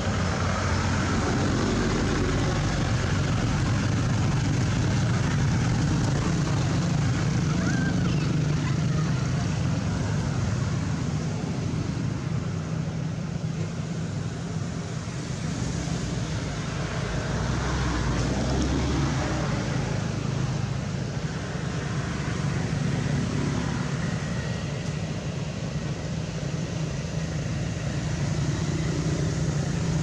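A steady low motor hum runs throughout, rising and falling gently in level.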